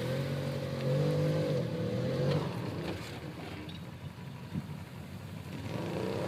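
An off-road vehicle's engine revving for about two and a half seconds, then dropping away; it revs up again near the end.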